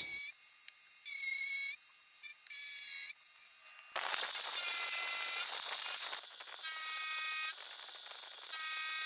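End mill in a milling machine cutting steel: a high-pitched cutting whine in stretches that shift in pitch, turning louder and noisier about four seconds in.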